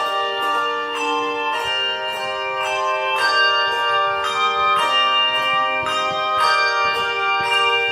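Handbell choir playing a piece: struck bells sounding notes and chords that ring on and overlap, with new strikes every half second to a second.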